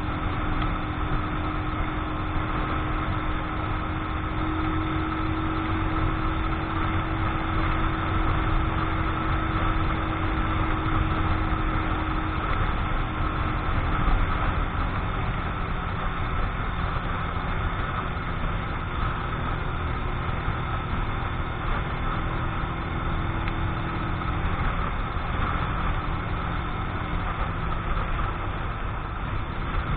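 Keeway X-Light 125 cc motorcycle engine running at a steady cruising pace while being run in, with wind noise over it.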